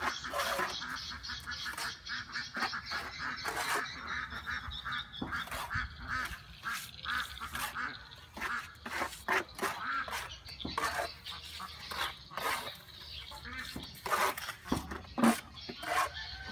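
Steel hand trowels working wet cement mortar onto a wall: an irregular run of short scraping strokes, with sharper slaps and knocks where mortar is thrown on and the trowel taps the board. Several knocks near the end stand out.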